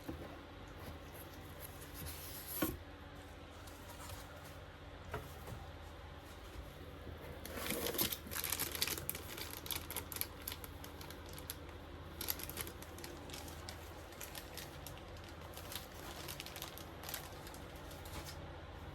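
Packaging being handled and opened: scattered clicks and knocks, with a stretch of rustling and crinkling about eight seconds in, over a steady low hum.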